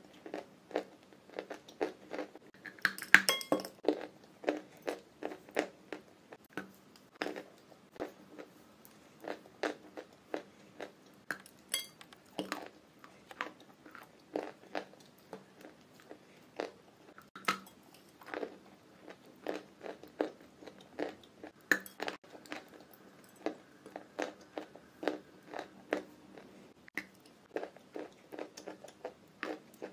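Close-up chewing of wet chalk paste, heard as a string of soft crunches and wet mouth clicks, about two or three a second. A louder burst of crunching comes about three seconds in.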